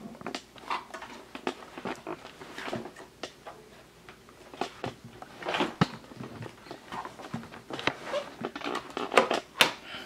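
Hard plastic clicks, knocks and light rattles as the parts of a Hoover Rewind upright vacuum are handled and its crevice tool is pulled from its holder, with a quicker run of clicks near the end.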